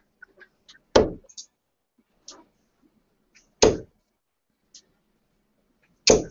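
Steel-tip darts hitting a bristle dartboard: three sharp thuds about two and a half seconds apart, with fainter clicks between them.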